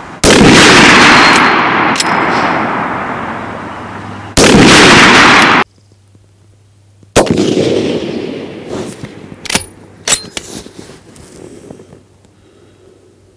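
Gunfire: a loud rifle shot with a long rolling echo, then a short loud blast that cuts off sharply, then a second sharp shot with a fading echo and a few sharp metallic clanks after it.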